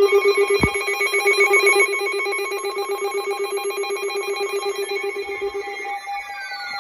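Weather alert receiver sounding electronic alert tones: a loud, rapidly pulsing low alarm tone with warbling higher tones above it. A sharp click comes about half a second in. Near the end the pulsing stops and two tones glide downward.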